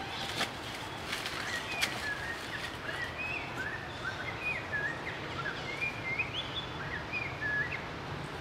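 A bird chirping a run of short, high whistled notes that slide up and down, a couple each second, over steady outdoor background noise.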